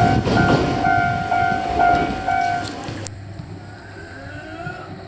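Japanese level-crossing warning bell ringing about twice a second over the rumble of a passing Choshi Electric Railway train. The bell stops about three seconds in and the sound drops off sharply.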